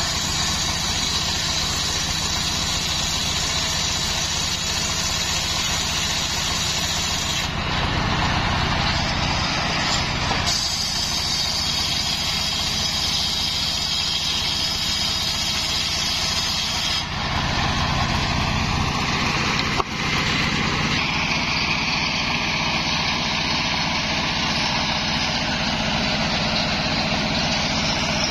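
Homemade circular sawmill running steadily on its engine while the blade rips coconut-palm timber into boards. The saw's high whine changes in strength several times as cuts start and finish. There is one sharp knock about 20 seconds in.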